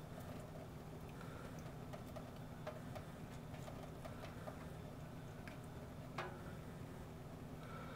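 Faint, irregular small clicks and drips as kittens lap water and paw at a thin stream trickling from a kitchen faucet into a stainless steel sink, the sharpest click about six seconds in, over a low steady hum.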